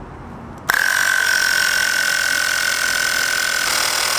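Compressed air hissing at the air chuck where the compressor hose meets the Schrader valve on a pressurized ABS-pipe tank: a loud, steady hiss with a high whistle, starting suddenly about a second in and lasting about four seconds.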